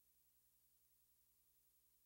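Near silence: only a faint steady electrical hum and hiss from the recording's noise floor.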